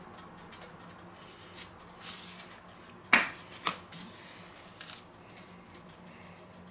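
Quiet handling of a burger and a plastic sauce bottle on a wooden cutting board, with two sharp clicks a little over three seconds in, about half a second apart, fitting the bottle's flip-top cap being snapped open.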